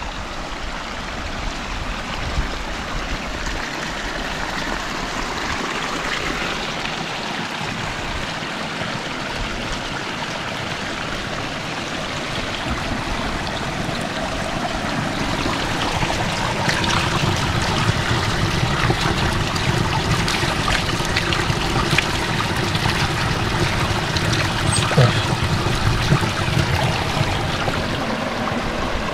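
Subaru XV on a rough gravel mountain track: steady tyre and road noise with many sharp ticks of loose stones, the rumble growing louder about halfway through.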